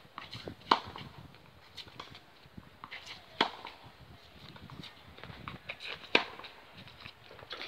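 Tennis racket striking the ball on forehand drives: three sharp hits a little under three seconds apart, with fainter clicks and taps between.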